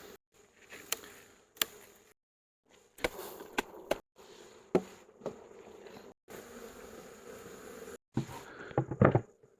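Honeybees buzzing around an opened hive, a steady hum broken by several sharp knocks and clicks. The sound drops out to silence briefly a few times.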